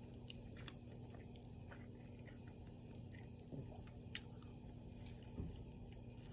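A person chewing steak and cheese close to the microphone, faint, with scattered small clicks of the mouth and a couple of soft low thumps, over a steady low hum.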